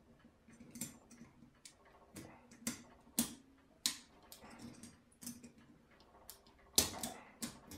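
Scattered light metallic clicks and scrapes of circlip pliers and a steel circlip being worked into its groove inside a rear brake caliper's piston bore, with a few sharper clicks near the end.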